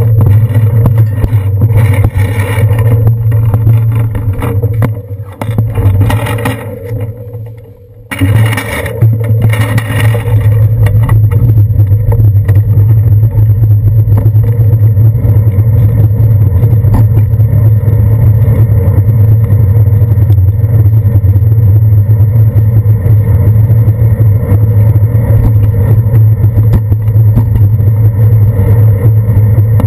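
Steady low rumble of wind and road vibration picked up by a handlebar-mounted action camera on a moving bicycle. It sags for a few seconds about five seconds in, then comes back abruptly about eight seconds in.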